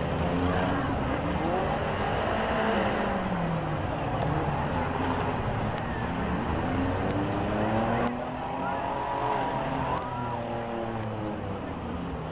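Engines of several small demolition-derby cars revving up and down at once, their overlapping pitches rising and falling.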